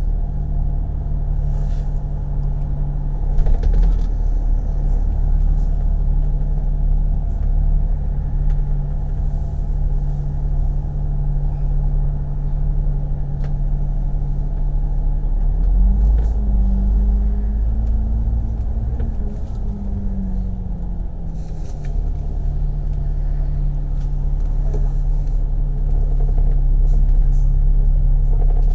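Double-decker bus engine heard from inside the upper deck, running with a steady low hum as the bus creeps in traffic. About 16 seconds in, the engine note rises for several seconds as the bus pulls forward, then settles back. A few light clicks and rattles come through.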